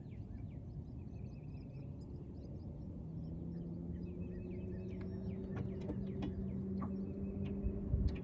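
Birds chirping and calling over a low rumble. A steady low hum starts about three seconds in, and there are a few light clicks and a knock near the end.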